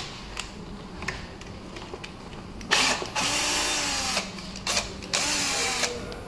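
Power screwdriver whirring in two bursts, the first about a second and a half long and the second shorter, as it backs out screws on an electric scooter's deck. Its pitch rises and falls within each burst, and a few light clicks of metal on metal come before them.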